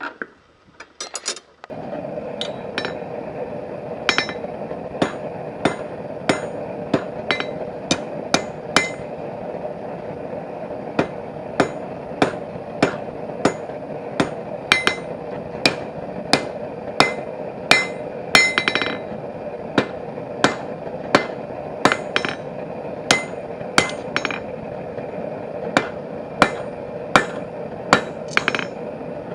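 Blacksmith's hand hammer striking bar stock on an anvil at an even pace, about three blows every two seconds, each with a bright ring, as the steel is forged into an offset and drawn out into a tang for a hinge part. A steady hum runs underneath from about two seconds in.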